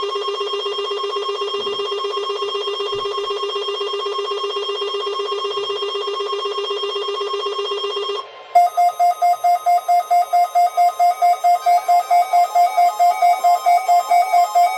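Weather radio alert tones: a steady electronic alarm tone for about eight seconds, then rapid pulsed beeping at about five beeps a second.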